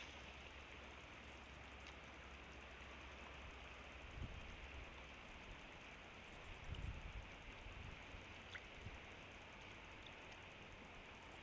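Near silence: a faint, steady outdoor hiss over a low hum, with a couple of soft low thumps about four and seven seconds in.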